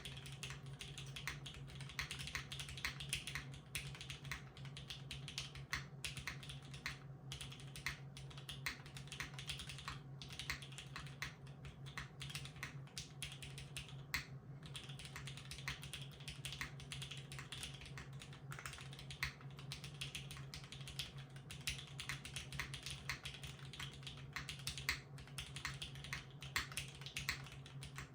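Continuous typing on a Singa x TGR Unikorn 60% keyboard with broken-in vintage Cherry MX Black linear switches, an aluminium full plate and GMK keycaps: dense keystrokes with a few short pauses, over a steady low hum.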